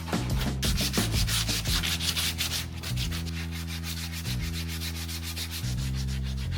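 Sandpaper being rubbed back and forth on a wooden subwoofer box, in quick rhythmic scratchy strokes, sanding off leftover fabric-adhesive residue.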